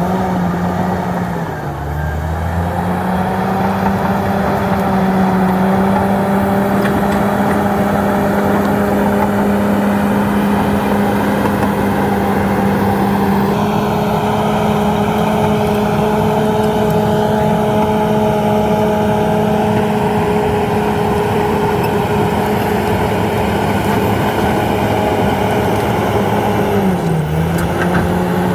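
Komatsu D68ESS bulldozer's diesel engine running steadily at high revs, its pitch dipping briefly about two seconds in and again near the end before it picks back up.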